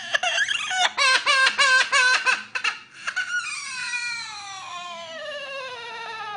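Amazon parrot mimicking a person crying: a quick run of sobbing notes, about four a second, then one long wail that falls steadily in pitch.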